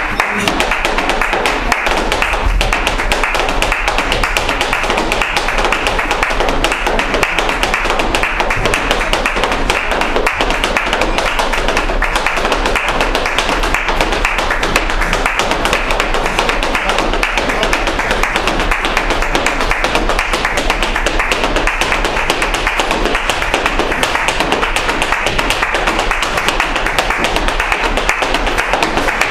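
Fast flamenco footwork (zapateado): a dancer's shoes striking the floor in a dense, unbroken run of rapid taps, over flamenco music.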